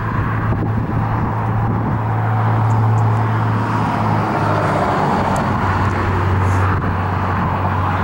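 Steady road noise of cars and trucks passing on a highway bridge, over a steady low hum.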